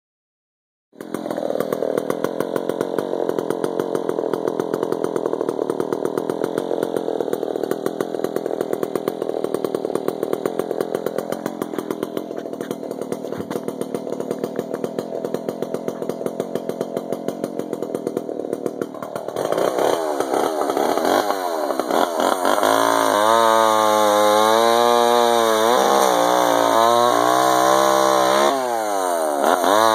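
Echo CS601 two-stroke chainsaw running, starting about a second in and idling with a steady rapid pulse. From about 20 seconds in its engine speed rises and falls over and over, the pitch swinging up and down.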